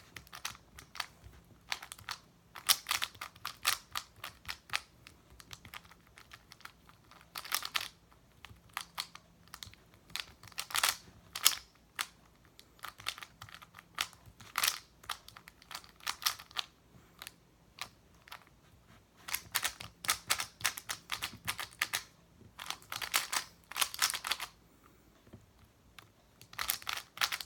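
A 3x3 speedcube being turned fast during a timed solve: bursts of rapid plastic clicking separated by short pauses.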